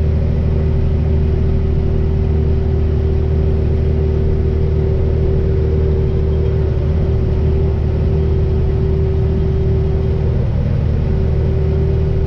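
Semi truck's diesel engine running steadily under way, with a steady droning tone from the exhaust that wavers briefly about ten seconds in. The driver notes that the exhaust has developed a drone at around 1600 RPM and suspects an exhaust leak.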